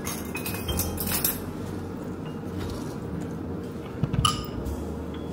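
Ceramic matcha bowl clinking as it is handled on the bar counter: light knocks about a second in, and a louder, sharper clink with a brief ring about four seconds in.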